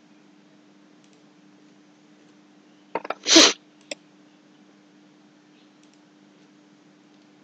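A few sharp clicks, then one loud noisy burst about half a second long, and a final click, over a faint steady hum.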